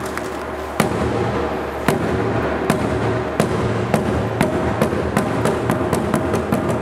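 Drums played in an accelerating pattern: single sharp strikes come closer and closer together until they are a quick run of hits, over a steady low drum rumble.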